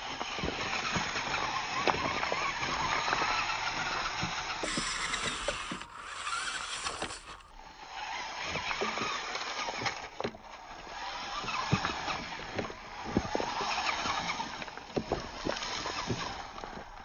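Radio-controlled rock crawler's motor and gears whining, the pitch rising and falling with the throttle, with scattered knocks and clatter as its tyres and chassis bump over loose cobbles. The whine drops away briefly about six seconds in, then picks up again.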